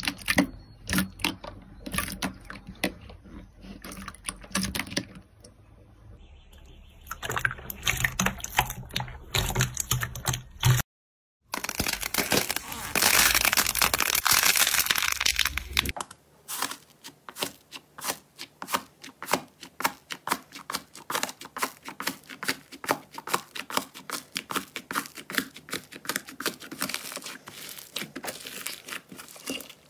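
Hands squishing and pressing slime in three clips. First, wet crackles and pops from clear jelly slime worked in a bowl. After a brief break, thick green slime is torn and squeezed, then many quick crackling pops come from fluffy blue slime with foam beads pressed under the palm.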